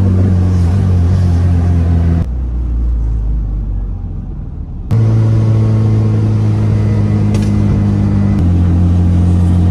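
Background music of sustained low droning notes that change pitch in steps, dropping out for about two and a half seconds to a low rumble from about two seconds in, then resuming.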